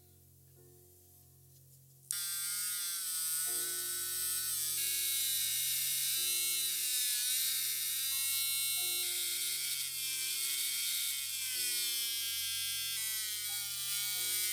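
Small electric rotary tool spinning a polishing wheel against a gold-tone watch case, starting suddenly about two seconds in as a steady whine whose pitch wavers up and down. Soft background music plays underneath.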